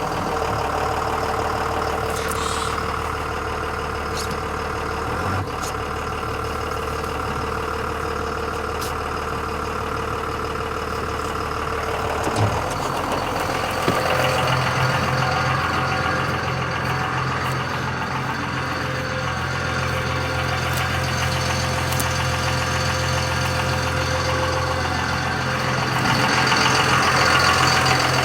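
A vehicle engine idling steadily; its low note shifts to a different pitch about halfway through.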